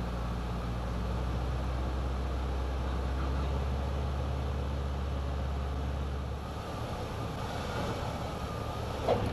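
Cessna 150's Continental O-200 four-cylinder engine droning steadily, heard from inside the cockpit on short final; the low hum drops away about two-thirds of the way through as the engine is throttled back for the landing.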